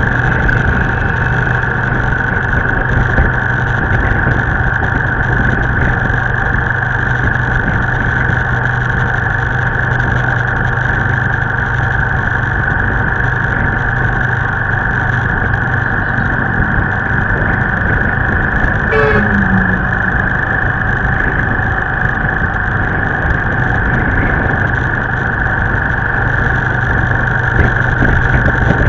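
Steady drone of a motorbike being ridden along a road: its engine running with wind noise on the camera, and the traffic around it. One brief separate sound stands out about two-thirds of the way through.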